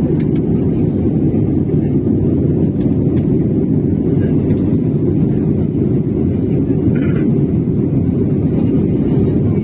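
Airliner cabin noise during the descent to landing: a steady, deep rumble of engines and airflow heard from a passenger seat.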